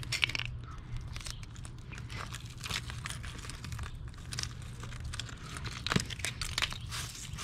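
Broken chips of old concrete crunching and scraping as they are worked loose from a damaged porch step, with scattered small knocks and one sharper knock about six seconds in.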